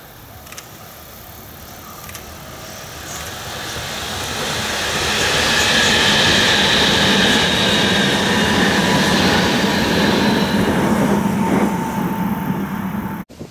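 Electric limited express train passing at speed. The rush of the train builds over about five seconds and stays loud, with steady whining tones over it, then cuts off suddenly near the end.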